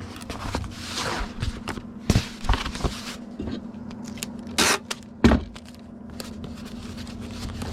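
Hands packing a comic book into a cardboard mailer: scattered scrapes, rustles and clicks, a short sharp rasp a little past halfway, then a thump, over a steady low hum.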